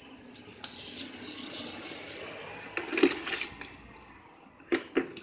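Water splashing and running over a plastic headlight lens as it is wetted for wet sanding with 1000-grit sandpaper, with a few sharp knocks near the end.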